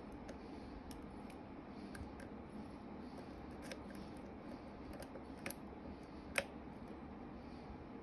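Light, irregular metallic clicks of a lock pick working the pins inside a custom-made challenge lock, under tension from a wiper-insert tensioner. There are about nine scattered ticks, with one sharper click about six and a half seconds in.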